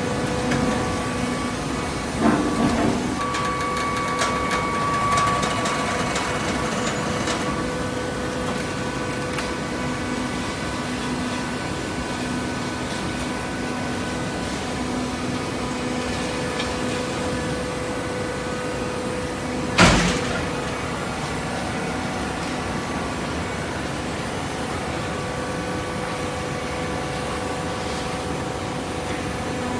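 Hydraulic shredded-paper baler running with a steady hum from its motor and pump. There is a knock a couple of seconds in and a single loud clank about twenty seconds in.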